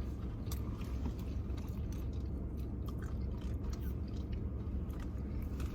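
Close-up chewing and crunching of fried tortilla nacho chips, with small scattered crunches over a steady low rumble.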